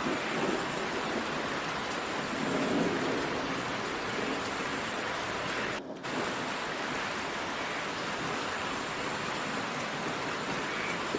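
Heavy rain falling steadily in a downpour, with a low swell of distant thunder rumbling about two to three seconds in. The sound dips out for a split second just before the six-second mark.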